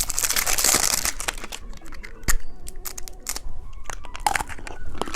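Plastic candy wrapping crinkling and tearing open, followed by a run of sharp clicks and taps of hard plastic, one louder click about two seconds in.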